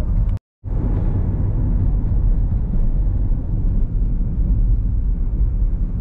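Steady low road and engine rumble inside a moving car. The sound cuts out completely for a moment about half a second in.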